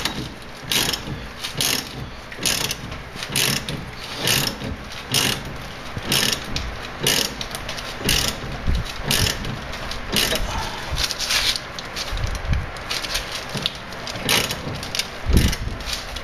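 Ratchet wrench clicking in short bursts about once a second as it turns the screw of a C-frame ball joint press, pressing a new Moog upper ball joint into a Dana 30 front axle's steering knuckle.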